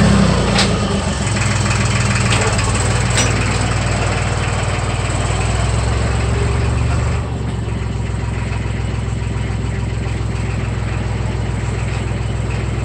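Compact tractor's engine running steadily as the tractor pulls away, with a couple of light clicks in the first few seconds; the engine sound drops a little about seven seconds in.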